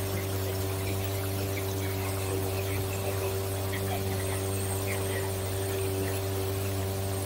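Steady low hum, with several fainter steady tones stacked above it and an even background hiss, unchanging throughout.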